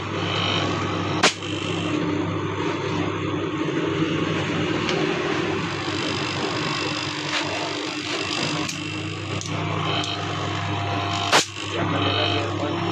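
Single-phase refrigeration compressor, freshly charged with oil, running on a test start with a steady electric hum. Two sharp clicks sound, about a second in and near the end.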